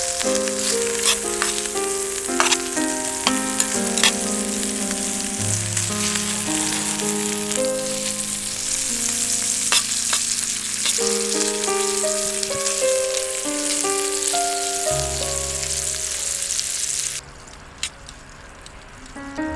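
Food sizzling and frying in a pan, with occasional sharp pops, over background music. The sizzling cuts off abruptly near the end.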